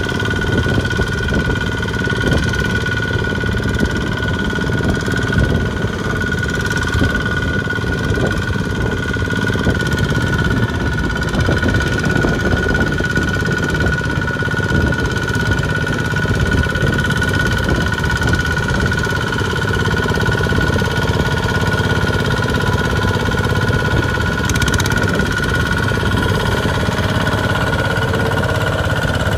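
Single-cylinder diesel engine of a two-wheel walking tractor running steadily while it pulls a loaded trailer through deep mud, with a steady high-pitched whine over the engine note.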